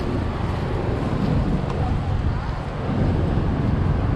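Wind buffeting the microphone, a steady low rumble, over open-air street noise with road traffic.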